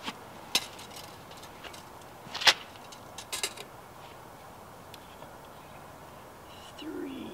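Scattered sharp clicks and knocks from a tape measure being worked at a van's rear door and bumper, the loudest about two and a half seconds in and a quick cluster about a second later.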